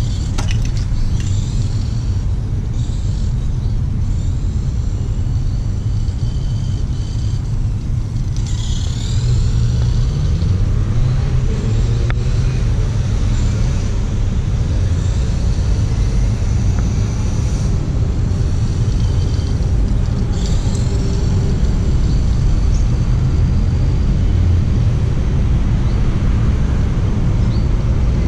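Tamiya Dual Rider radio-controlled trike's electric motor and gears whining high, the pitch swooping down and up as it speeds and slows, most clearly about a third and two-thirds of the way through. Underneath is a heavy, steady low rumble.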